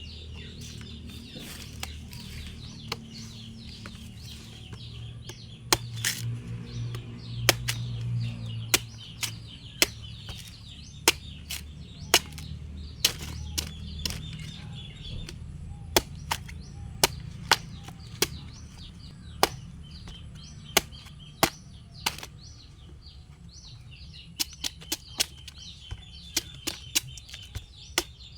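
A machete chopping into a young green coconut: sharp single blows, roughly one a second, with quicker runs of strikes near the end as the husk is cut open to get at the coconut water.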